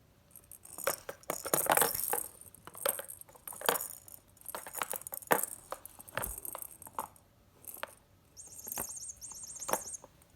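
A cat toy jingling and clinking as it is batted about: irregular bursts of light clicks and high metallic jingling, with a denser run of jingling near the end.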